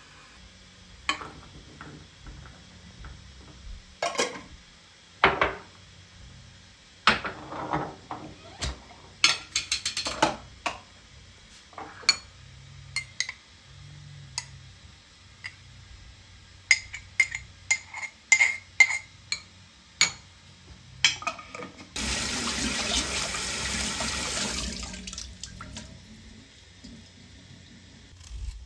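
Kitchen work: dishes and utensils clinking and knocking in irregular strokes, some with a short ring, then water running for about three seconds near the end.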